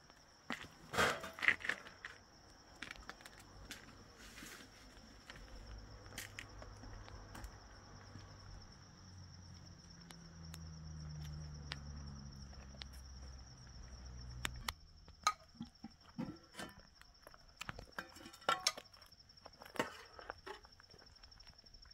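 Crickets chirping in one steady high note, with footsteps and scattered clicks and knocks. A low rumble comes in a few seconds in and cuts off suddenly about two-thirds of the way through.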